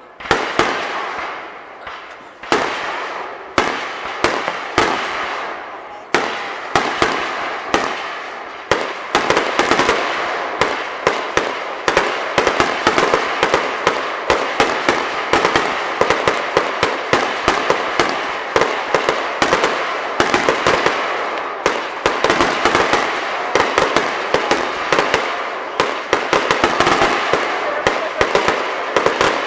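Aerial fireworks shells bursting. At first they come as separate bangs about a second apart, each dying away. From about nine seconds in they become a rapid, continuous barrage of overlapping bangs.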